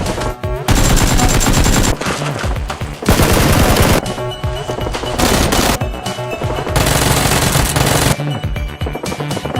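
Dubbed automatic gunfire sound effects: rapid-fire bursts in several long runs of about a second each with short breaks between them, over background music.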